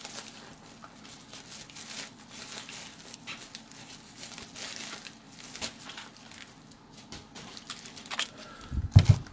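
Bubble wrap and plastic packaging crinkling and rustling as silver bar tubes are unwrapped, with scattered small clicks. A dull thump about nine seconds in.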